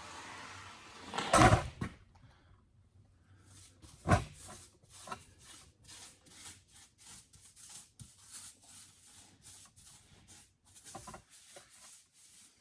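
Tire mounting lube being brushed onto a plow truck tire's bead: a run of short, quiet scraping strokes, two or three a second. A loud thump comes about a second and a half in, and a sharp clack at about four seconds.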